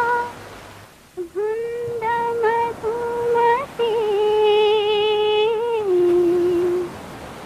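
A woman humming a slow, wordless melody with long held notes and a wavering vibrato, without accompaniment, as the soundtrack song opens.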